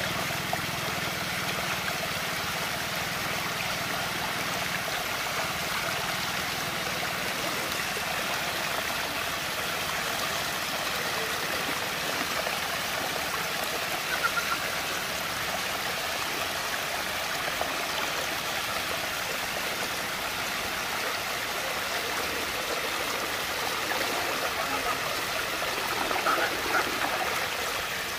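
Water swirling down a large whirlpool vortex: a steady rush of flowing water, with a low hum underneath that fades out in the first few seconds and a couple of brief louder splashes midway and near the end.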